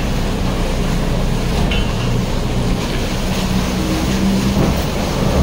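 Canal passenger boat's engine running steadily at low revs while the boat is held at the pier: a continuous low rumble with no breaks.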